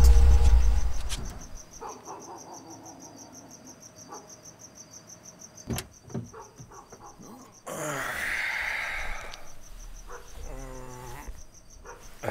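Crickets chirping in a steady, rapid pulse as a deep rumble fades out in the first second or so. A sharp click comes about six seconds in, then a rush of noise and a few creaks in the second half.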